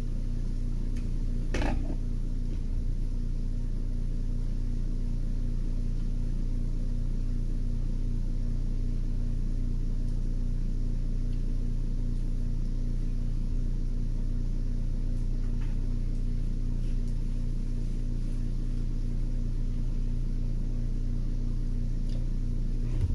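Steady low machine hum, as from an appliance or fan running, with one brief click about two seconds in.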